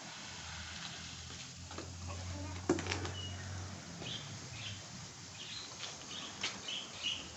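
Water from a garden hose spraying against a car's side and pattering onto wet paving, with a sharp click a little under three seconds in and a run of short high chirps in the second half.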